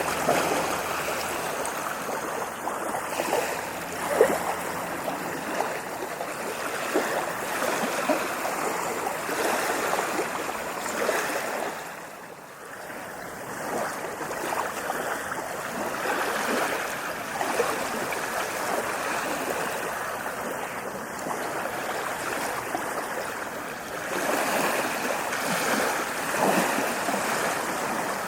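Ocean waves washing in, a continuous rush of water with scattered sharp splashes; it eases briefly around the middle and swells again near the end.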